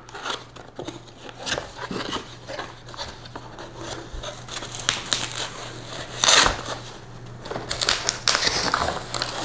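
Packaging being handled: a cardboard product box opened and the plastic wrapping inside rustled, giving scattered crinkles, scrapes and taps. The loudest burst is about six seconds in, and the rustling thickens over the last couple of seconds.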